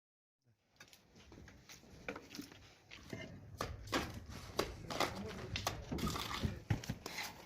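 Irregular sharp taps and scrapes of hand tools working cement render, starting about half a second in.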